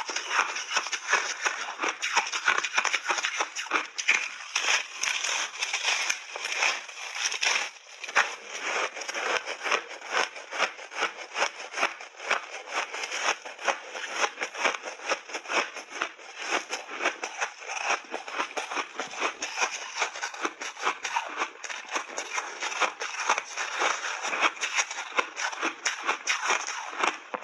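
Person biting and chewing big chunks of refrozen ice with mixed berries frozen into it: a dense, continuous run of sharp crunches and crackles.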